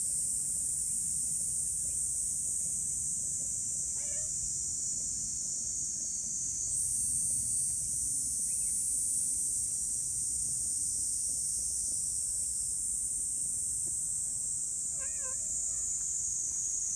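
Cat meowing twice: a short meow about four seconds in and a longer, wavering meow near the end. Under both runs a steady high-pitched drone of insects.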